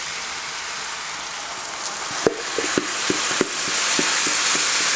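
Chicken pieces frying in sesame oil on a hot cast-iron Dutch oven lid, with a steady sizzle. About two seconds in, teriyaki sauce and onions hit the hot iron: the sizzle grows louder, with a quick run of sharp pops and spatters.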